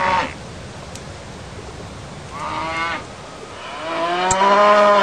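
Sheep bleating, three calls: one trailing off at the start, a short one midway, and a longer one near the end.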